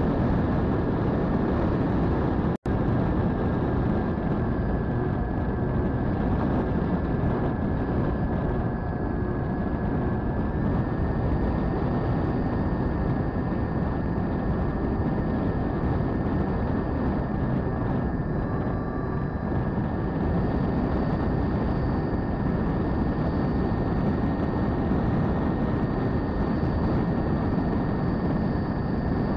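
Twin electric motors and propellers of an Eachine Airloader RC plane at low cruise throttle, heard from its onboard camera: a steady whine over a heavy rush of air, the whine stepping up slightly in pitch about ten seconds in. The sound drops out for an instant just under three seconds in.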